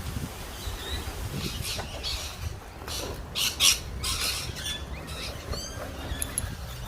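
Birds chirping, over a low wind rumble on the microphone, with a few short hissing bursts about two to four seconds in.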